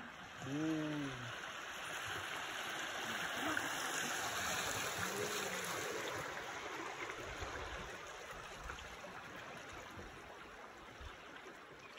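River water rushing and splashing along the side of a small boat as it runs a fast, shallow rapid. The rush swells a couple of seconds in and eases off toward the end.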